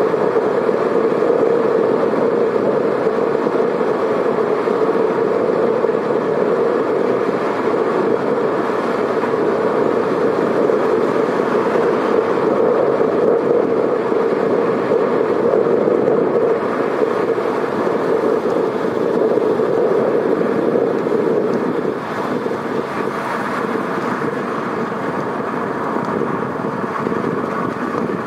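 Steady road noise of a car driving on wet pavement in the rain: an even rush of tyres and rain, easing off a little near the end.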